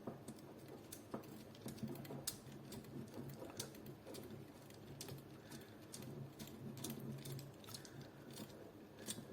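Faint, irregular small clicks and scrapes of a screwdriver turning a small screw into the metal body of an airsoft AK during a hop-up unit install.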